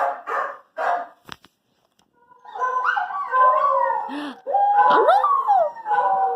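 Several dogs howling together in overlapping, wavering calls that rise and fall in pitch. They start about two and a half seconds in, after a short click and a brief pause.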